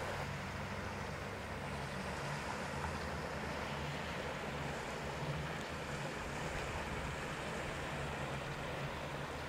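Outboard motor of a small inflatable rescue boat running steadily, with water and wind noise on the microphone.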